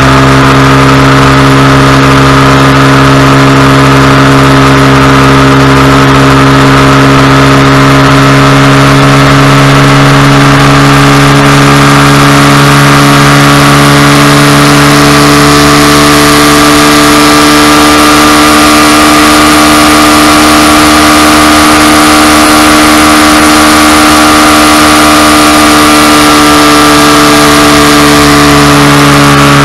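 Honda Cub 90's small single-cylinder four-stroke engine running hard at steady high revs, heard loud from on board the bike with wind rush. The pitch climbs a little midway and eases back near the end.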